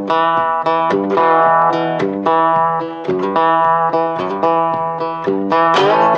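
Background music of plucked strings, banjo or guitar, playing a quick run of notes.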